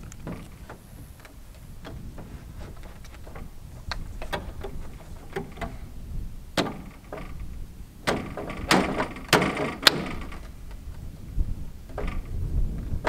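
PVC downspout pipe being dry-fitted by hand, knocking and scraping against its elbow and fittings. Scattered light knocks, with a run of louder knocks and scrapes about eight to ten seconds in.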